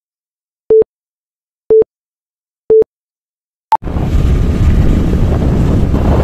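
Countdown-leader beeps: three short identical tones one second apart over silence, then a brief higher blip. Just under four seconds in, loud wind buffeting the microphone cuts in.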